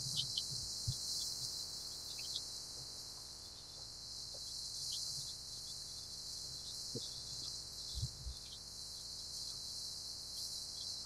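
Steady high hiss of wind and rushing water along a sailboat's hull under sail, with a couple of dull low thumps from the boat working in the waves.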